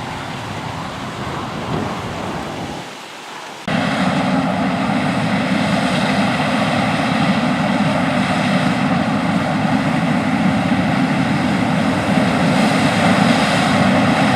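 John Deere S690 combine harvesting corn, its engine and threshing machinery giving a steady drone. The sound cuts abruptly about four seconds in to a louder drone, which holds steady after that.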